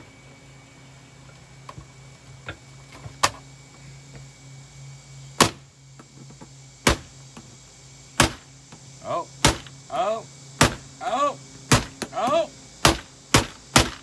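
Repeated sharp blows on a Kenmore canister vacuum as it is smashed, sparse at first and then about one a second over the second half, several followed by a brief warbling ring. A steady low hum runs underneath.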